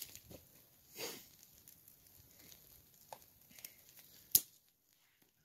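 Faint rustling and crinkling of hands working the last bits of sap out of what held it, with one sharp snap a little past four seconds in.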